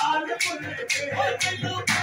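Qawwali: harmonium and men's voices with hand claps keeping a steady beat, about two claps a second.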